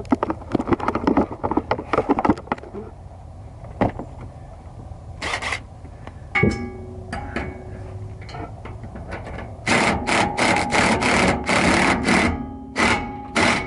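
Cordless impact driver run in short trigger bursts, whirring as it drives bolts up through the propane tank brackets into the bus frame; a single burst about six seconds in, then a quick string of them near the end. Knocks and rustling of handling come first.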